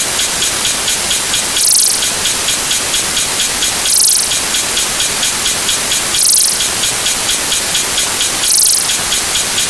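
A dense, rain-like hiss made of a sound effect stacked over itself many times, with a brighter swell repeating about every two seconds as the layered clip loops.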